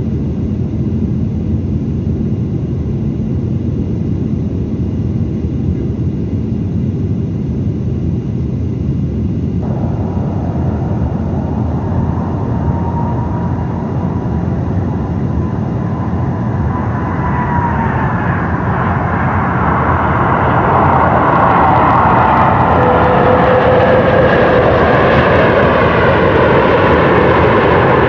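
Steady low rumble of an airliner cabin in flight, then, after an abrupt change about ten seconds in, an Airbus A330's jet engines whining as it comes in to land. The engine noise swells and stays louder over the last several seconds as the airliner rolls out on the runway.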